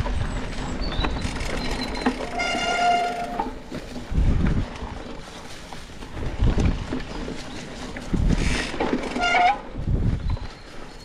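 Wind buffeting the microphone over the rumble of a mountain bike riding a trail, with a steady horn-like tone lasting about a second about two seconds in and a shorter, slightly rising one near the end.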